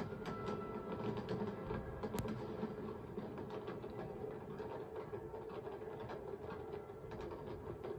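Fireworks crackling and popping in quick, irregular succession, heard through a television's speaker.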